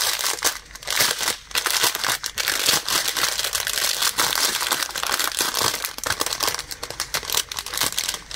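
Clear plastic bag crinkling and rustling as hands handle it and work out a strip of sealed diamond painting drill packets, with many small crackles throughout.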